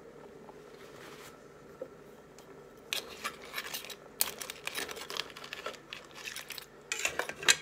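Metal spoon stirring crab pieces in a large metal pot of curry: the spoon clinks and scrapes against the crab shells and the pot in irregular runs, starting about three seconds in, over a faint steady hum.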